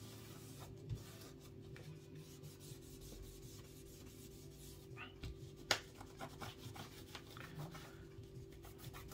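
Faint rubbing and scraping as old adhesive residue, loosened with isopropyl alcohol, is cleaned off the edges of an iPad's aluminium frame, with a sharp tick a little past halfway. A steady low hum runs underneath.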